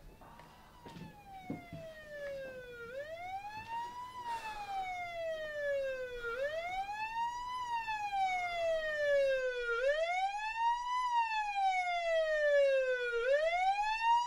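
Police siren wailing, rising quickly and falling slowly about every three and a half seconds, and growing louder as it approaches, answering the 999 call. A few faint knocks sound about a second in.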